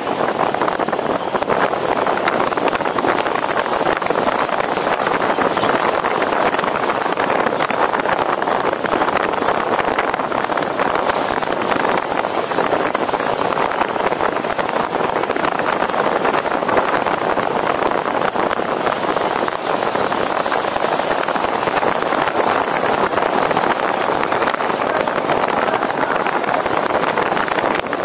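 Steady rushing noise of air and road heard through a camera mounted on the roof of a moving car, even throughout with no distinct events.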